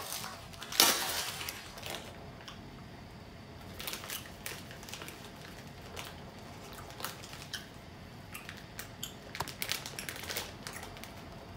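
A plastic candy bag is pulled open with a sharp tearing pop about a second in. The wrapper then crinkles on and off as it is handled.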